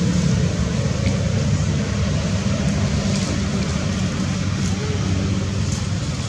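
A steady low rumble under an even hiss, with a few faint ticks.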